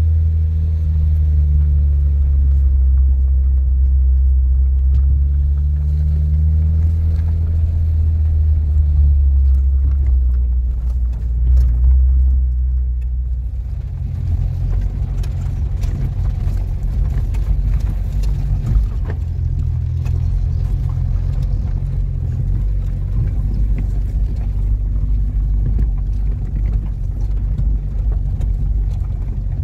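Car engine and tyre noise heard from inside the cabin while driving slowly on a dirt road: a steady low hum that turns rougher and more rumbling about halfway through.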